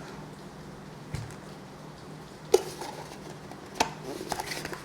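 A cardboard product box being opened and its packaging handled: a few separate sharp clicks and taps, the loudest about halfway through, then a quicker run of small taps and rustling near the end.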